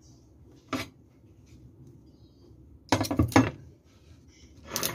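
Kitchen handling sounds on a wooden cutting board as cake slices are wrapped and set down: a short clatter about a second in, a louder cluster of knocks around three seconds in, and another short clatter near the end.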